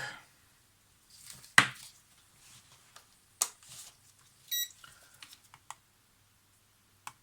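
A few sharp handling clicks and knocks, with a short electronic beep about four and a half seconds in and a brief lower tone right after it. This is a digital multimeter being switched on and set up to check the voltage of the Polaroid film pack's battery.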